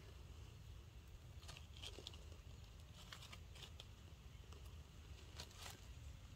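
Near silence: a few faint, scattered crackles and rustles of dry leaf litter over a low steady rumble.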